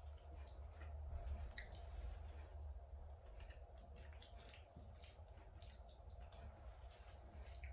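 Faint close-up eating sounds: a person chewing seafood, with wet squishy mouth noises and scattered small clicks, over a steady low hum.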